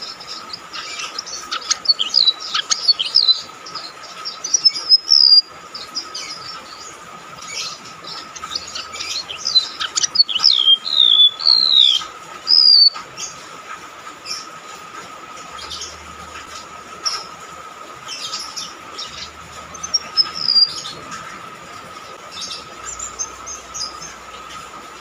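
Golden-bellied gerygone (rametuk laut) singing: runs of high, shrill whistled notes with quick falling slurs, busiest in the first half and sparser afterwards. A steady high-pitched hum runs beneath.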